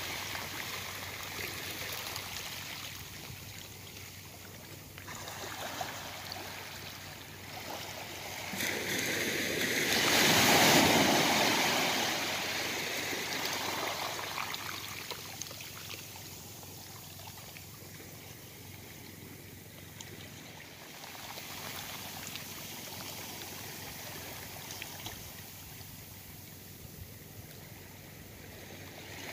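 Small waves lapping and washing onto a calm beach, swelling and fading, with one louder wash about ten seconds in.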